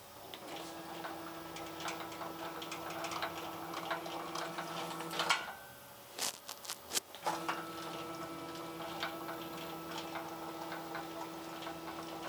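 Stepper motors driving a homemade CNC plasma table's gantry along its Y axis: a steady motor hum with a scatter of small rattling ticks as the gantry jumps up and down on its uneven travel. It runs about five seconds, stops with a few sharp clicks, then runs again the other way. The rough travel comes from the frame sitting higher at the back than at the front.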